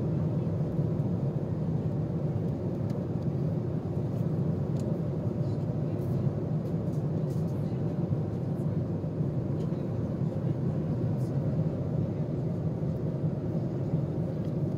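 Steady low cabin rumble inside an Airbus A330-200 airliner, with faint light rustles and ticks of paper leaflets being handled.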